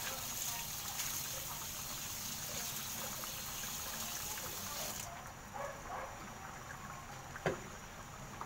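Tap water running into a sink while a glass bowl is rinsed under it; the flow cuts off suddenly about five seconds in. A few light clinks follow, with one sharp knock near the end.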